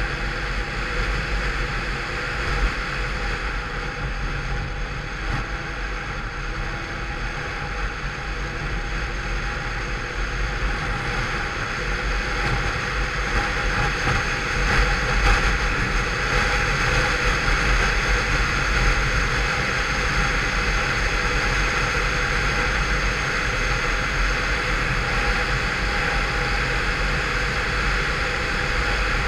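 Peugeot Vivacity 50cc scooter engine running steadily on the move, with wind and road noise; the scooter is derestricted with a changed variator and rollers. The sound grows a little louder about halfway through and stays there.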